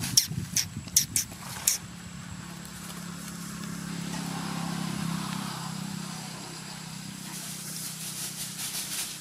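Sharp crackles and knocks of dry leaves and a coconut shell as a baby macaque scrambles about, then a low engine hum that swells and fades, like a vehicle passing, with light leaf rustling near the end.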